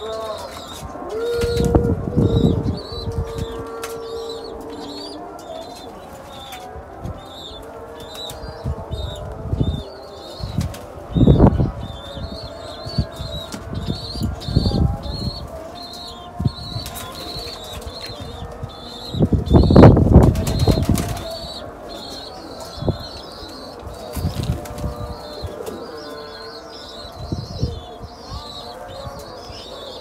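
Pigeons bathing in a shallow plastic tub of water, beating their wings and splashing in repeated bursts, with one long, loudest burst past the middle.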